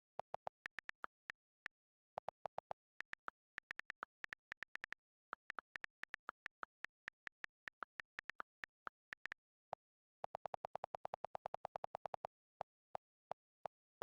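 Morse code tapped out as a long series of short, sharp clicks in irregular groups. About ten seconds in, a fast run of clicks comes, lower in tone.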